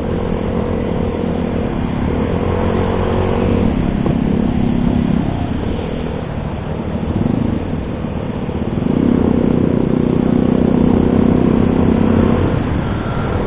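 Motorcycle engine running while riding, with a steady droning note. It grows louder from about nine seconds in as the bike speeds up.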